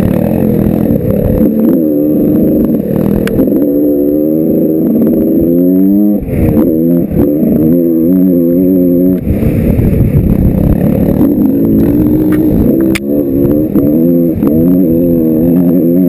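Yamaha YZ125 big-bore two-stroke dirt bike engine revving hard under way, its pitch climbing and dropping repeatedly as the throttle is worked and gears are changed, with a few sharp knocks from the bike over bumps.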